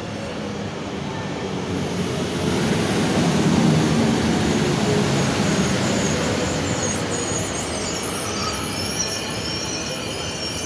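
PKP EP09 electric locomotive and Intercity passenger coaches rolling past close by. The running noise is loudest as the locomotive passes about three to four seconds in, then the coaches follow with high-pitched metallic wheel squeals in the second half.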